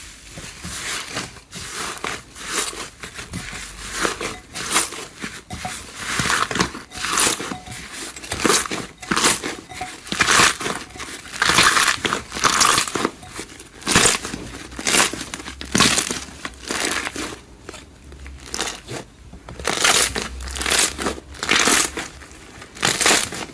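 Slime being squeezed and pressed by hand, giving an irregular string of short, noisy squishes, about one or two a second.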